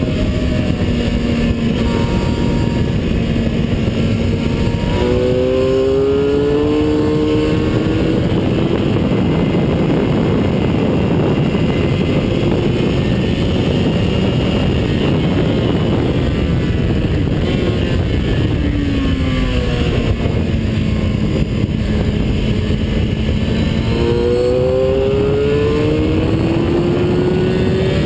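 Vehicle engine heard onboard at speed under a heavy rush of wind. The engine note falls for a corner, climbs under acceleration about five seconds in, drops again in the middle, and climbs once more near the end.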